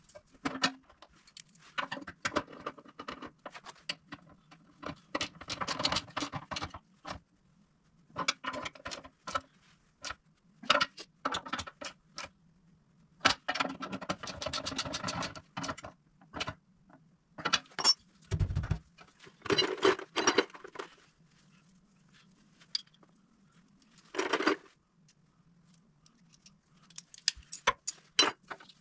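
Metal hand tools and bolts clinking and rattling, with runs of quick clicking from a socket ratchet tightening the winch mounting bolts. There is a dull thump a little past halfway, over a faint steady hum.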